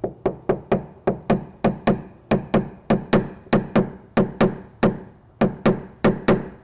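Quick, evenly paced metal taps, about four a second, each with a short ring: a paintless dent repair knockdown tool being struck against a car's painted steel body panel to tap down raised metal around the dent.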